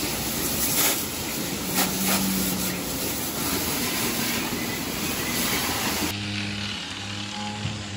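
Water hose spraying down milking equipment: a loud, steady hiss. About six seconds in it cuts off suddenly and gives way to a lower, steady machine hum.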